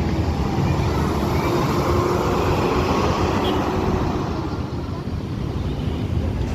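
Road traffic noise with a passing bus's diesel engine and tyres running steadily. No horn sounds.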